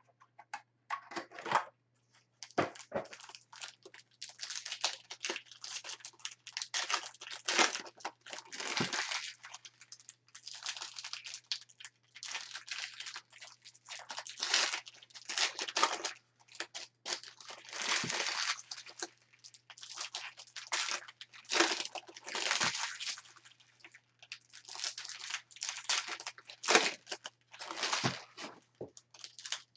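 Trading-card pack wrappers being torn open and crinkled by hand: a continuous run of irregular crackling rustles and tears.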